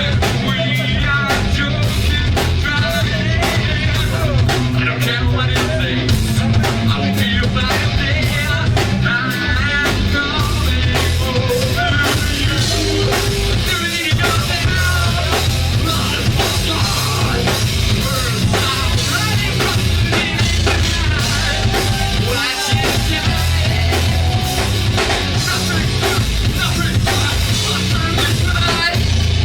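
Live rock band playing loud through a club PA: drum kit, distorted guitars and bass, with a singer's voice wavering over the top.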